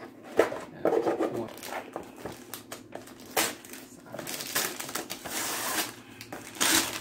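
Gift wrapping paper being torn and crinkled off a box, in several rustling bursts that come thicker in the second half.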